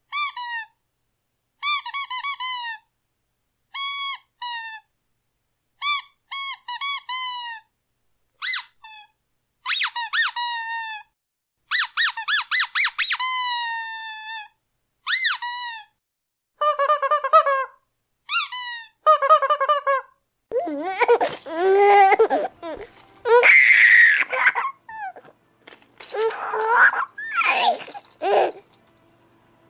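Rubber squeaky dog toy being squeezed over and over: short, high squeaks in quick clusters, each dipping in pitch. In the last third the squeaks turn rougher and lower.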